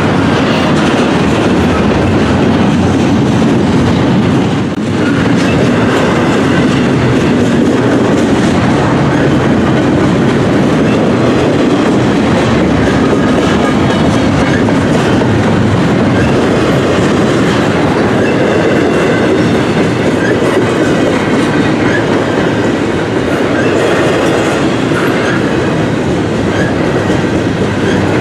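Double-stack intermodal well cars of a long freight train rolling past close by: a loud, steady rumble of steel wheels on the rails, with the clatter of the wheel sets.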